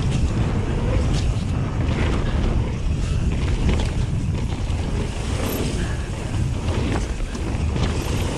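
Wind buffeting the action camera's microphone as a mountain bike rides fast down a dirt trail, mixed with the tyres rolling over the ground and scattered short clicks and knocks from the bike.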